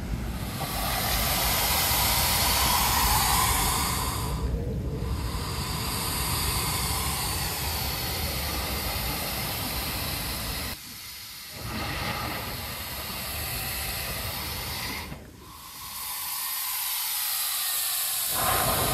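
Air and spray hissing in and out of a blowhole-like opening in coastal lava rock, pushed by the surging surf, with the sea breaking around it. The hiss comes in long swells with short lulls between them.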